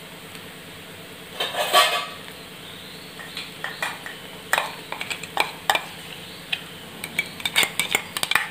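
A spoon clinking and scraping against a container as ginger-garlic paste is measured out: a louder clatter about a second and a half in, then scattered sharp clinks that come faster toward the end. Onions frying softly in oil underneath.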